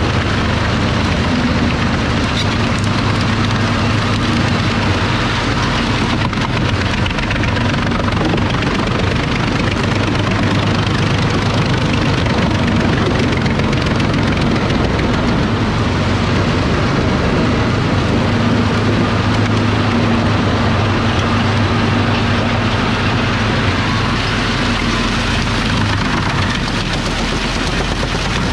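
Claas Xerion tractor and Jenz HEM 583 drum wood chipper running steadily together, chipping tree-crown material: a deep engine drone under a continuous noisy rush.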